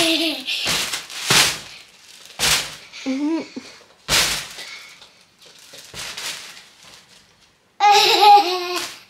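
A young girl laughing and giggling in short breathy bursts, then a higher squealing laugh near the end.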